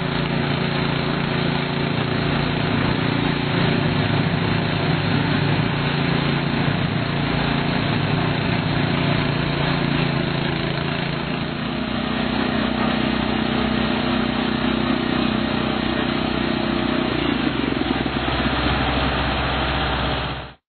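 Engine of an AlphaBoats FX10 aquatic weed harvester running steadily; its note changes about halfway through, and the sound cuts off suddenly at the end.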